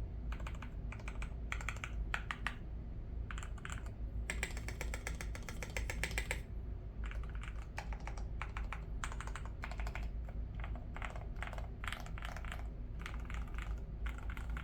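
Typing on an MK870 mechanical keyboard with Cherry Nixie switches, modded with foam and tape: bursts of keystrokes, with a fast, unbroken run of strokes about four seconds in that lasts some two seconds.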